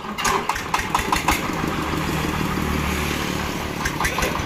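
Diesel engine of a mobile rice-mill vehicle being hand-crank started: a quick run of knocks as it catches in the first second or so, then it runs steadily.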